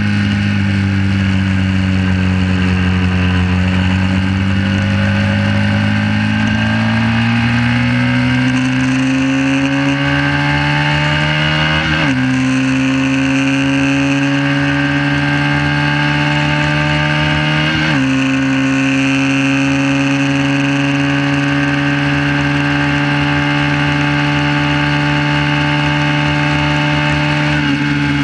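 1968 Honda CB350's parallel-twin engine accelerating hard, its pitch climbing with two sudden drops for upshifts about 12 and 18 seconds in. It then holds steady at high revs down the straight and falls off near the end as the throttle is eased.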